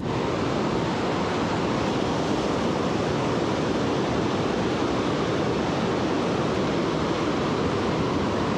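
Fast river current rushing over a riffle close by: a steady, even rush of water.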